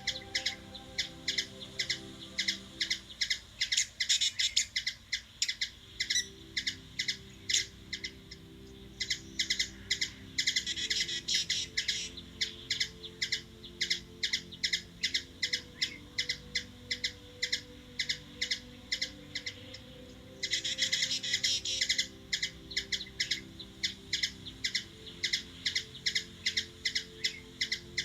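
A bird chirping over and over in a steady series of short, sharp, high chirps, about three a second, breaking twice into a denser run of rapid chirping.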